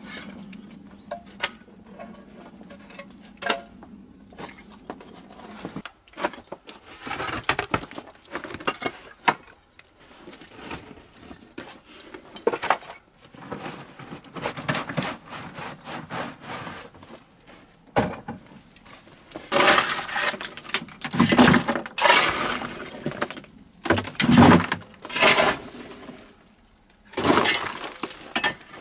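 Fire-cracked rock chips and stone rubble clattering and clinking as they are scooped up by hand and tossed into a plastic container. The rattling comes in irregular handfuls, loudest in several clusters in the second half.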